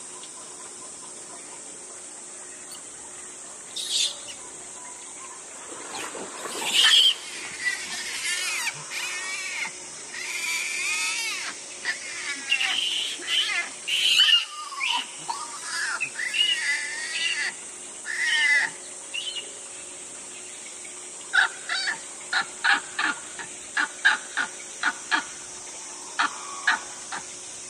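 Japanese macaques calling: shrill screams and squeals rising and falling in pitch for several seconds, then after a pause a quick series of short, sharp calls, about two a second, over a steady high hiss.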